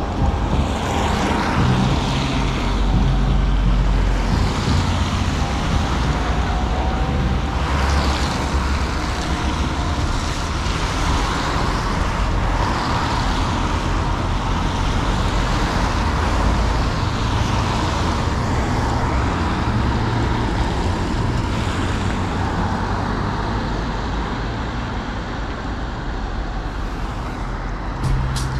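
Road traffic on a wet road: cars and vans passing one after another, each one swelling and fading with tyres hissing on the wet surface.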